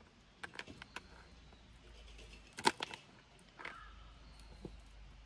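Knife cutting a crisp bar of chocolate on a small cutting board: a few short sharp clicks and cracks of the blade and breaking chocolate, the loudest about two and a half seconds in.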